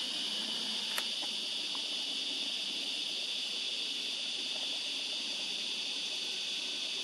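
Steady high-pitched insect chorus, a dense unbroken drone, with a single sharp click about a second in.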